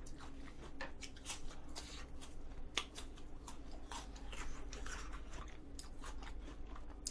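Close-miked chewing of an apple slice: irregular, crisp crunches and mouth clicks.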